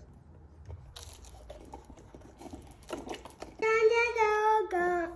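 Apple juice box sucked through a plastic straw: a run of crackly slurping clicks, with the carton crinkling. Near the end comes a child's high voice, held on one pitch for about a second, then dropping lower.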